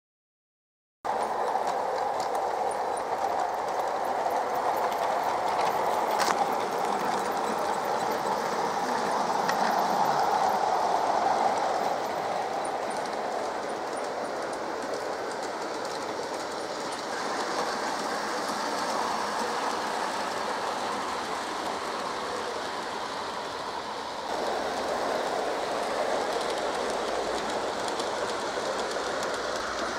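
Battery-powered LGB G-scale model trains running on garden track: a steady rolling rattle of small wheels on the rails, swelling as a train comes close around ten seconds in and again near the end.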